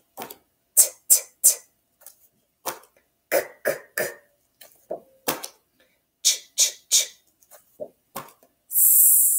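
A woman saying letter sounds on their own: short puffed consonants such as 't' and 'k' in quick sets of three, then a long 's' hiss near the end.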